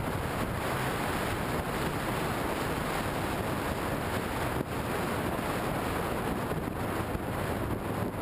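Steady wind rush on the microphone of a camera mounted on a moving motorcycle, with road noise underneath.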